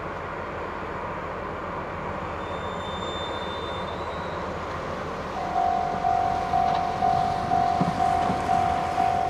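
A railway level-crossing warning bell starts about five seconds in, ringing one high ding about twice a second over a steady background rumble. It is the signal that a train is approaching the crossing.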